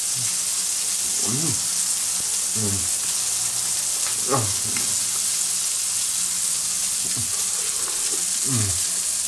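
A burger cooking in a frying pan, sizzling steadily. A few short, low vocal hums come from someone eating.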